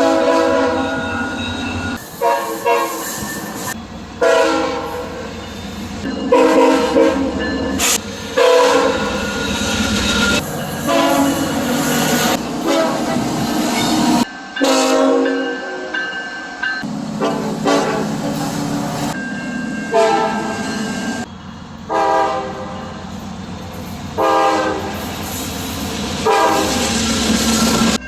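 Locomotive horns sounding in a run of long and short multi-tone blasts over the rumble and clatter of passing trains. The horn and its surroundings change abruptly several times, as one train's horn gives way to another's.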